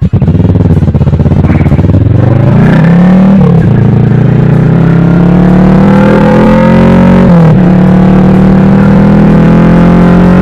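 Kawasaki Vulcan S 650's parallel-twin engine through a full Delkevic exhaust, accelerating hard. The pitch climbs, drops at an upshift about three seconds in and again at a second upshift about seven seconds in, then holds steady at cruise. It is loud enough to overload the microphone.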